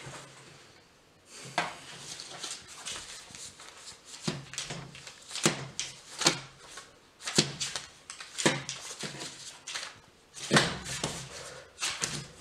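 Paper play-money banknotes dealt out one at a time onto a tabletop, each note landing with a short papery slap or flick, about one a second, starting a second or so in.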